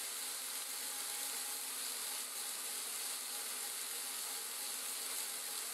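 Small electric motor of a motorised toy fire truck whirring steadily as it drives the turntable ladder out to its extended length.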